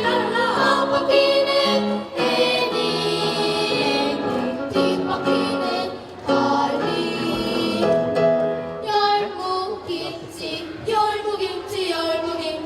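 A small vocal ensemble singing a song in several voices, with phrases that pause briefly about two and six seconds in.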